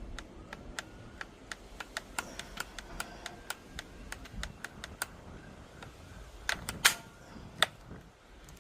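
A motorcycle seat lock being worked by hand: a run of small sharp clicks, two or three a second, with a few louder snaps a little over six seconds in.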